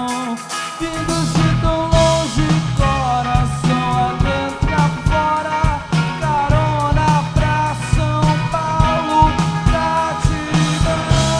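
Rock band playing live: electric guitars, bass and drum kit with a steady beat, and a melodic line riding on top.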